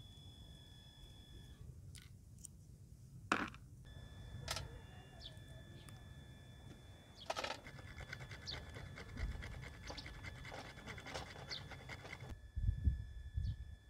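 Scattered light clicks and rustles of cracked walnut shells and kernels being picked over by hand, with a few louder knocks near the end. Two faint steady high tones run underneath.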